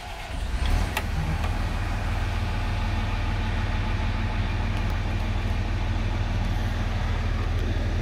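Diesel pusher engine catching and coming up to speed within the first second, then idling steadily, with one sharp click about a second in.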